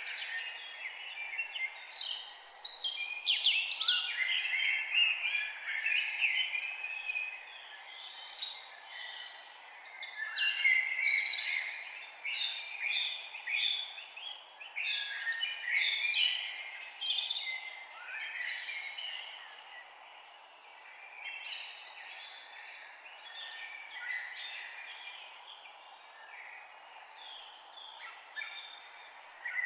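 A chorus of several songbirds chirping and singing over one another, over a steady faint hiss; the singing thins out in the last third.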